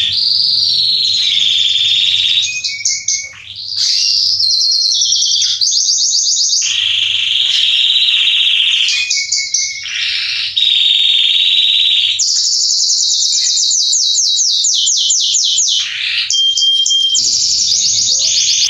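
Male Belgian canary singing loudly and continuously, a song of rapid high trills and rolls. It breaks off briefly about three seconds and ten seconds in, and holds a short steady whistled note near the end.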